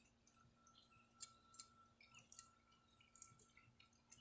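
Near silence, with a few faint scattered clicks over a faint steady hum.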